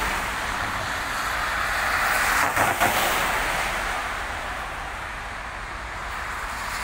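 Traffic passing on a rain-soaked road: the hiss of car tyres on wet tarmac swells as a vehicle goes by about two and a half seconds in, then fades, rising again near the end as the next one approaches.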